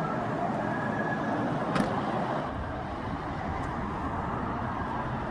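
Steady city traffic noise, with one sharp click a little under two seconds in.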